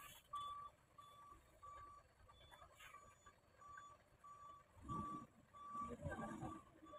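A truck's reversing alarm beeping steadily, one short beep at one pitch about every half second. Twice in the second half there is a low rumble.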